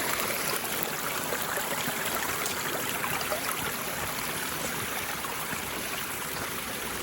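Stream water rushing, a steady, even noise.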